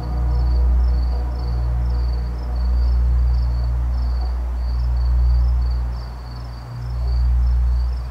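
Background music: a low ambient drone that slowly swells and fades about every two and a half seconds. Over it, high cricket-like chirping repeats evenly, about three chirps a second.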